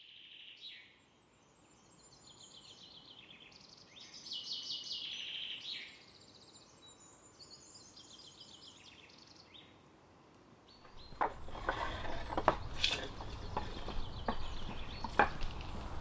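Woodland birdsong: several small birds singing repeated trilled phrases. About eleven seconds in, it gives way to sharp clacks and knocks of hard Horsham sandstone slabs being handled and set down on one another.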